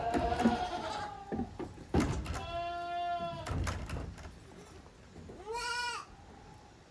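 Young goats bleating: a long, even bleat about two seconds in and a shorter bleat that rises and falls near the end. Loud knocks and thumps come in the first half.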